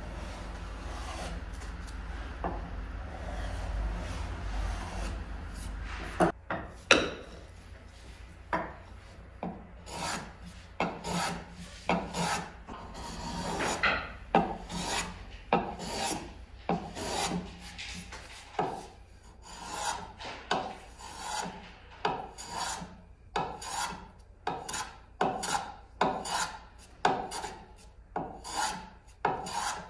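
Small brass block plane taking repeated short strokes along the edge of a wooden cutting board, each stroke a brief shearing hiss of the blade cutting a shaving. After a few seconds of low rumble, the strokes start about six seconds in and keep an even rhythm of a little more than one a second.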